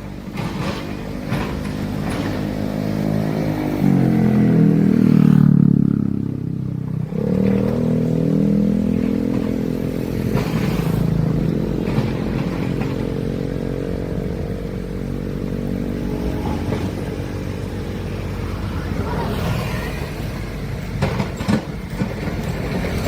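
Large excavator's diesel engine running under load, its revs rising and growing louder for a few seconds before dropping back to a steady run, with a few clanks near the end.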